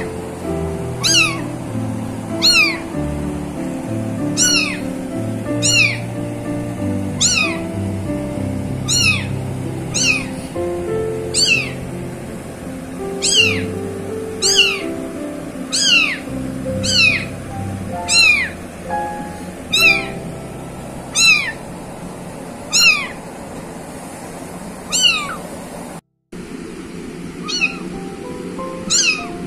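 A very young kitten mewing over and over, short high cries that fall sharply in pitch, about one every second and a half, over background music. The sound cuts out for a moment near the end.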